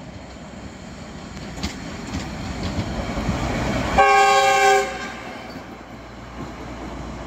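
Small yellow rail maintenance car passing close by on the track, its wheel rumble rising as it approaches, with a few clicks from the rails. About four seconds in, as it goes by, it sounds a short horn blast of several tones lasting under a second, the loudest part, then its running fades as it moves away.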